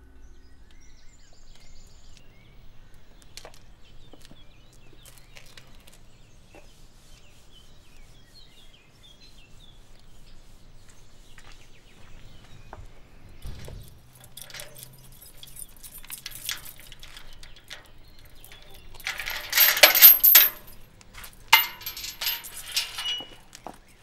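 Keys jangling and iron rattling as a wrought-iron gate is unlocked and opened. The loudest rattle comes a few seconds before the end, followed by several lighter metallic clinks.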